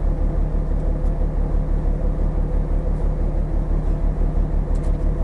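Steady low rumble of a container ship's engine and machinery, pulsing about four times a second, heard on the open deck. A light click near the end as the steel deck door is worked.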